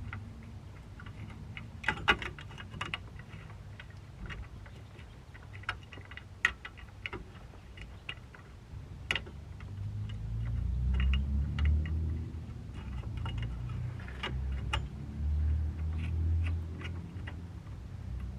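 Irregular light metallic clicks and taps of tools and parts being handled while fitting a rear wheel hub assembly, with a low rumble swelling in the second half.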